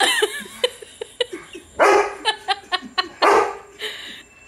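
German Shepherd barking at his own reflection in a glass door, taking it for another dog: short yips at first, then three loud barks.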